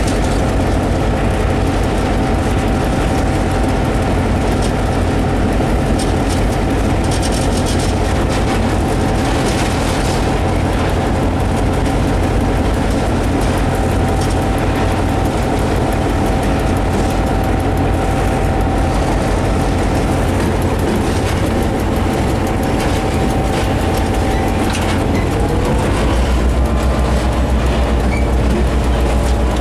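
Diesel locomotive running and rolling along the track, heard from inside its cab: a steady low engine rumble with a held whine over it and wheel noise from the rails. About 25 seconds in, the whine rises in pitch and the low rumble grows louder, easing back near the end.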